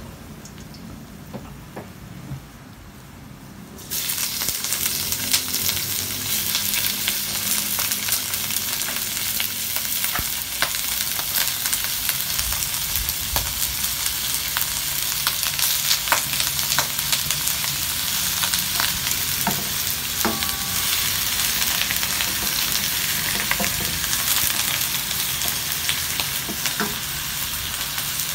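Raw shrimp in hot oil in a wok with fried garlic. A loud sizzle starts suddenly about four seconds in and keeps going, with clicks and scrapes from a wooden spatula stirring.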